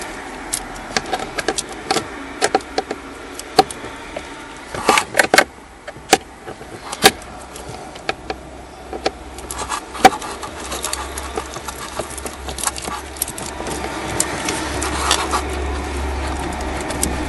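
Irregular clicks, taps and small metallic clinks of a hand tool and loose screws being handled while removing the blower motor's mounting screws, a few of them sharper knocks. A low hum comes in about halfway through and grows toward the end.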